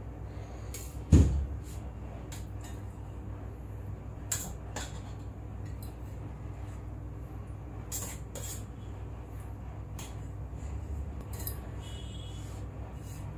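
Kitchen handling sounds over a steady low hum. There is one loud knock about a second in, then scattered light clicks and taps of utensils and dishes as a cake is layered and covered with whipped cream.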